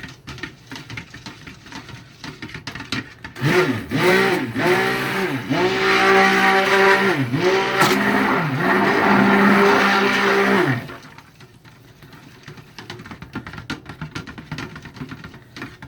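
Stick blender running in soap batter for about seven seconds, starting a few seconds in. Its motor pitch dips and recovers several times as it is pulsed, then it stops. Faint clatter before and after it.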